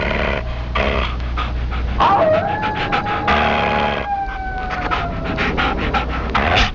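Canine howling: two long howls, each sliding slowly down in pitch, the second starting about two seconds in with a short dip and rise. A low hum and crackle run underneath.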